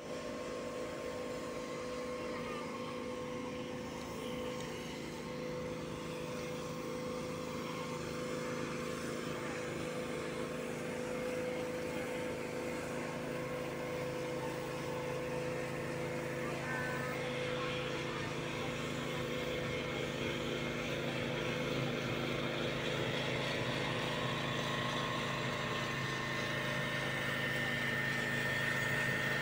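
A steady mechanical drone made of several steady pitched tones, slowly growing a little louder.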